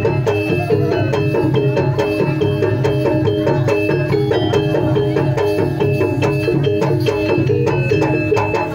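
Gamelan-style percussion music accompanying a Javanese folk dance: metallophones play a quick melodic figure that repeats over and over, over steady drumming.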